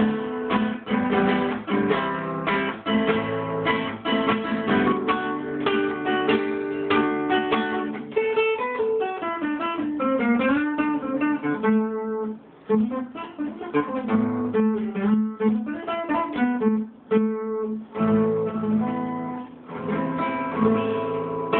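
A guitar played solo: strummed chords, then a stretch of single picked notes through the middle, then strumming again near the end.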